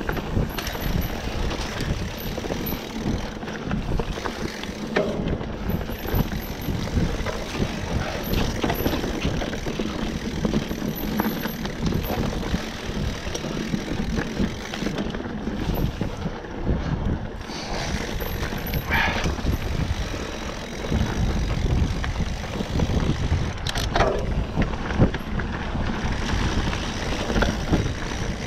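Mountain bike riding fast down a dirt singletrack: steady rumble of tyres and wind, with frequent knocks and rattles as the bike goes over bumps.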